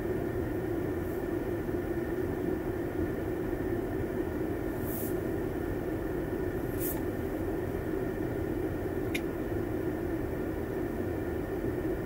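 Steady rumble and drone of a car heard from inside the cabin, with three short hisses about five, seven and nine seconds in.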